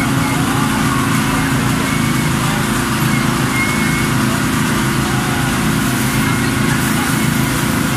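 A small engine running steadily with an even, unbroken hum.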